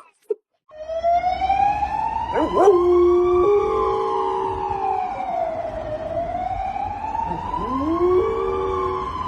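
Emergency-vehicle siren in a slow wail, starting just under a second in and rising and falling in pitch. Twice a second, lower voice rises and holds underneath it for a couple of seconds.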